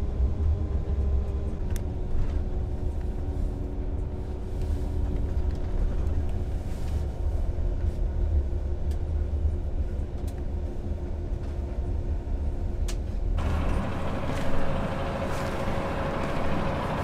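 Steady low engine and road drone heard from inside a moving coach bus, with a faint steady hum above it. About thirteen seconds in it changes abruptly to a brighter hiss with a single engine hum, as heard outside beside the bus.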